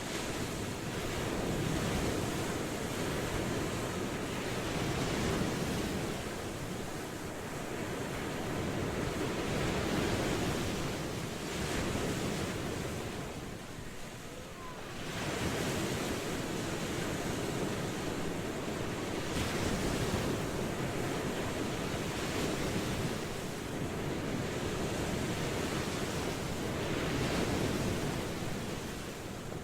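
Ocean waves washing onto a shore, a continuous surf rising and falling in slow swells every few seconds, with a brief lull about halfway through.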